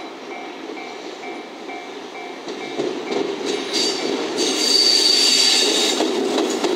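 A JR EF65 DC electric locomotive running light, its wheels clacking over rail joints and points and growing louder as it draws close and passes, with a high wheel squeal for about a second near the middle. A repeating electronic beep sounds about twice a second in the first couple of seconds, then stops.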